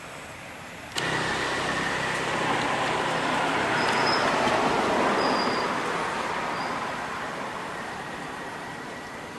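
A road vehicle passing by: its noise comes in suddenly about a second in, swells for a few seconds with a low engine note under it, then slowly fades away.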